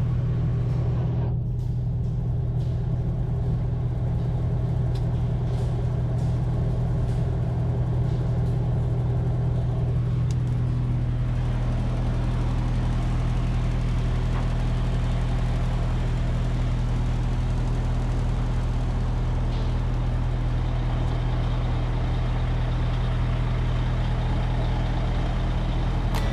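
Concrete mixer truck running steadily while mixing, a constant low engine hum; its sound shifts slightly about ten seconds in.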